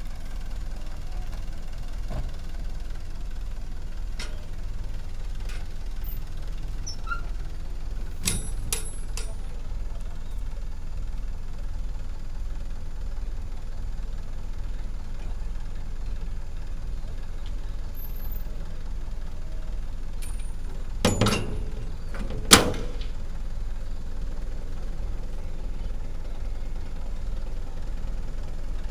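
Dump truck's diesel engine running steadily while the tipped bed is lowered, with a few sharp metal clanks; the loudest are a quick pair and then a single bang about three quarters of the way through.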